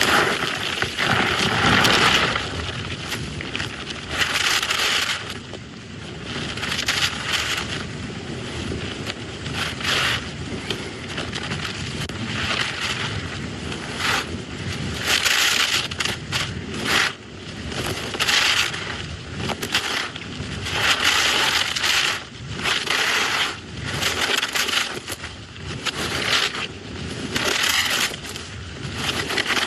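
Skis carving turn after turn down an icy, hard-packed giant slalom course: a scraping hiss that swells with each turn, about every one to two seconds, over steady wind rush on the microphone.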